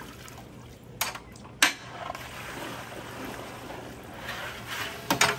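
Sharp metal clanks from an aluminium boil pot and its basket's wire handle, then water streaming and dripping out through the holes of the perforated strainer basket as it is lifted out of the shrimp boil, with more clanks near the end.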